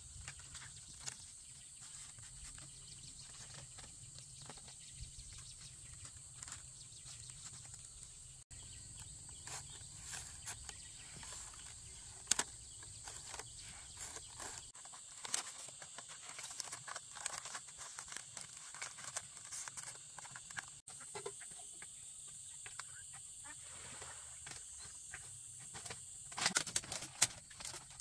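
Light clicks and clatter of thin split-bamboo strips being woven and handled, with a burst of louder clatter near the end, over quiet rural outdoor ambience with a steady high hiss.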